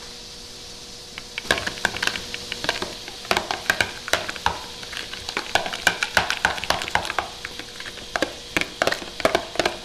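Wire whisk beating a thick mayonnaise-and-mustard sauce in a small bowl: rapid, irregular clicking and wet scraping of the wires against the bowl's sides, starting about a second in.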